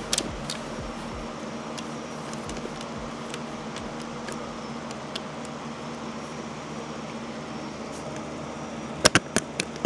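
A steady background hum, with a few sharp clicks and knocks from a 3D-printed plastic helmet being handled, most of them in a cluster near the end.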